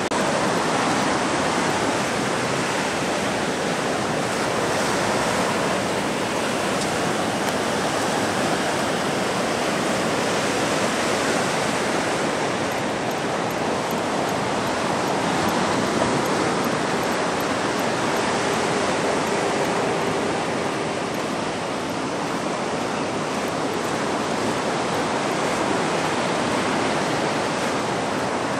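Pacific Ocean surf breaking and washing up a sand beach, a steady rush of waves.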